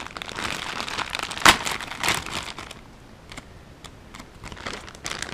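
Plastic packaging crinkling and crackling as it is handled and pulled open, with one sharp snap about a second and a half in. After about three seconds it turns quieter, with only occasional light rustles.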